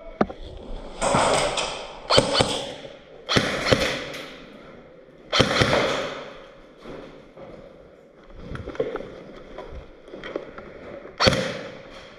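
Airsoft guns firing: about five sharp bursts of shots, some in quick rapid strings, each dying away within a second, with quieter gaps between.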